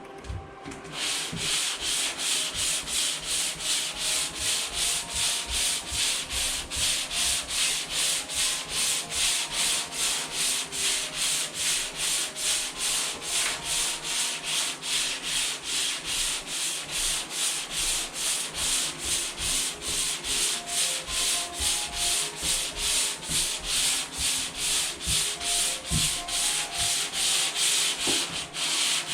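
Hand sanding of dried drywall joint compound: sandpaper scraping back and forth over the wall in a steady rhythm of about three strokes a second, starting about a second in, with a brief pause near the end.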